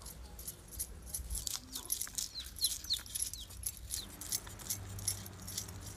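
A knife scraping the scales off a whole rohu fish in quick, repeated strokes, each a short scratchy click.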